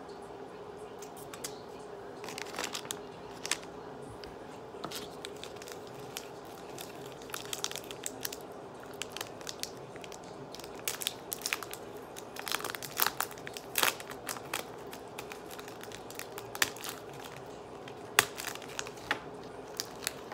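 Crinkly plastic chocolate-bar wrappers being handled and torn open: irregular crackles and rustles, thickest about two-thirds of the way through, with the sharpest crackle near the end.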